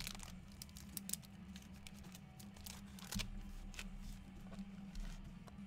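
Scattered light clicks and crinkling of packaging being handled, over a faint steady low hum.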